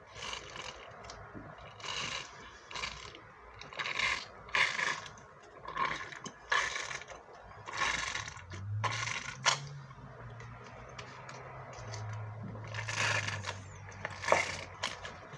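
Someone drinking apple juice fast: a string of short, noisy gulps and breaths, about one a second. A low steady hum joins through the middle stretch.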